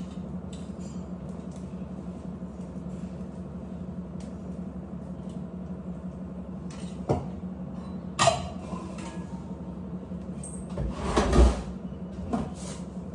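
Steel kitchen utensils and containers handled on cupboard shelves: short knocks and clinks, with a louder clatter and thump near the end. A steady low hum runs underneath.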